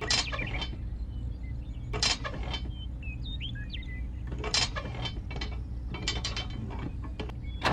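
Irregular mechanical clicks and clacks, in small clusters of a few each, from small metal or plastic parts being worked, over a steady low hum.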